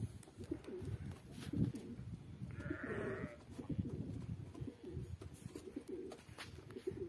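Penned pigeons cooing, with a single bleat from the goats and sheep about three seconds in, over wind buffeting the microphone.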